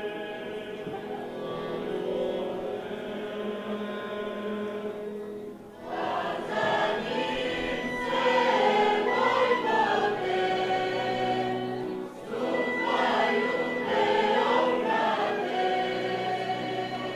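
Serbian folk music: held instrumental notes, then from about six seconds in a group of voices sings a folk song in full voice, with a short break about twelve seconds in.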